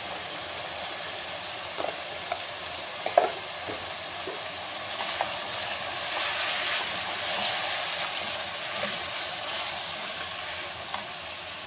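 Mutton pieces and ground spice masala sizzling in hot oil in an aluminium pressure cooker, stirred with a wooden spoon while the masala is fried into the meat. The sizzle is steady and grows louder in the second half, with a few spoon knocks against the pot; the sharpest is about three seconds in.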